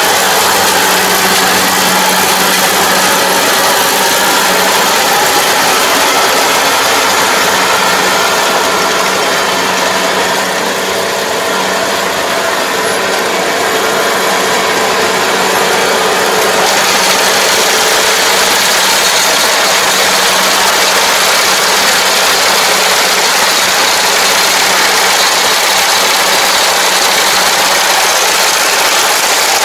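Kubota rice combine harvester's diesel engine running steadily under working load, with a constant low hum and a continuous mechanical rattle.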